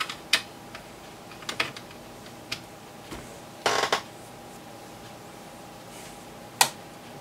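Scattered sharp clicks and one short clatter from an oscilloscope probe and test leads being clipped onto the circuit board and handled. A faint steady tone runs underneath.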